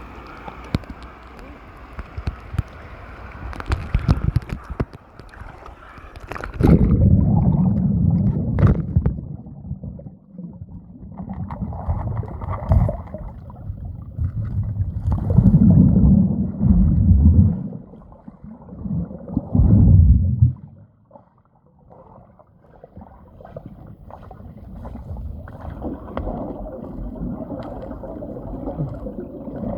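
Water splashing and gurgling. About seven seconds in the sound turns muffled and boomy, with no highs, in loud surges of sloshing and gurgling typical of a microphone under water.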